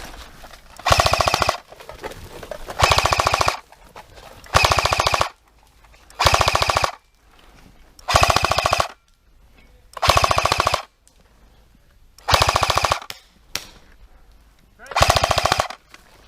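Airsoft gun firing eight short full-auto bursts, each under a second long, roughly every two seconds, loud and close to the microphone.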